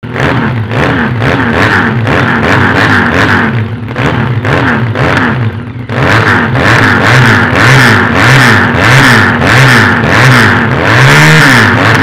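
400 cc fuel-injected, water-cooled chopper engine revving through twin chrome exhaust pipes. The throttle is blipped again and again, so the pitch rises and falls about once a second, and there is one bigger, higher rev near the end.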